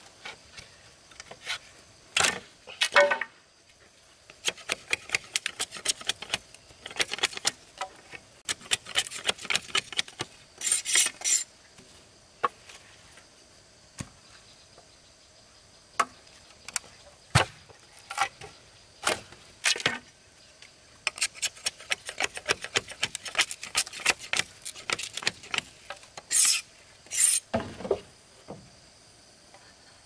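Bamboo and wood knocking and scraping under hand work: irregular runs of sharp taps and clicks, with a few louder knocks between them.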